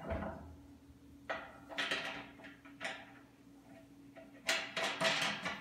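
Metal leg of a honey extractor being shifted and its fastening knob turned back on: a few short scraping, rattling clatters of metal parts, the longest cluster near the end.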